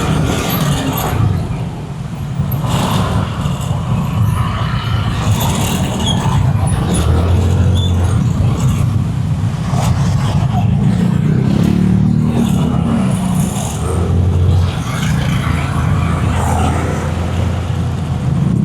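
Steady low rumble of a car on the move, engine and road noise, swelling louder a few times.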